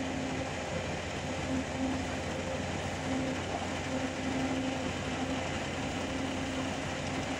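Tata bus's front-mounted engine running steadily at low speed as the bus creeps forward onto a service pit, a continuous engine hum with no sudden events.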